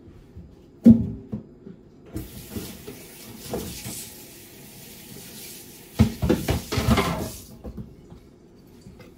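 A sharp knock about a second in, then a kitchen faucet running for about five seconds, with clattering in the sink near the end, before the water shuts off.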